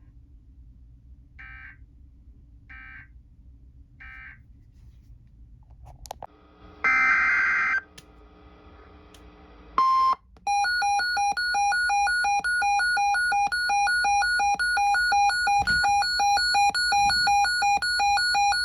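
Electronic weather-alert beeping: after a few faint blips, a loud buzzy burst of about a second and a short tone, an alarm beeps steadily about two and a half times a second. It signals an incoming weather warning.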